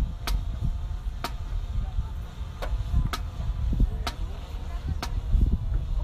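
Wind rumbling on the microphone, with sharp clicks about once a second.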